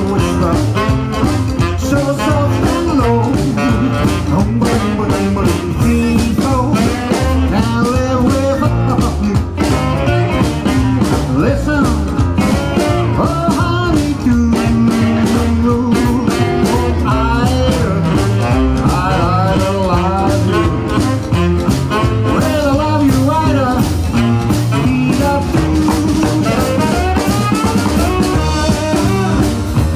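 Live rock 'n' roll band playing at a steady beat: electric guitar, upright bass, drums and piano.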